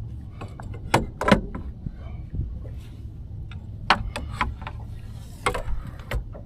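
A string of sharp knocks and clunks as fishing gear is handled and stowed away, over a steady low hum.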